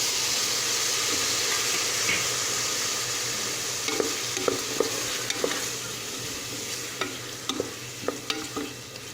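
Tomato frying with shallots and a ground garlic–pepper paste in hot sesame oil in a pressure cooker: a steady sizzle that slowly dies down. From about four seconds in, the stirring utensil clicks and scrapes against the cooker several times.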